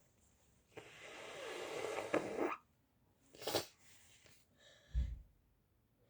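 A sick young boy sneezing repeatedly: a long noisy breath that builds up, then a short sharp sneeze about three and a half seconds in. A low thump follows near the end.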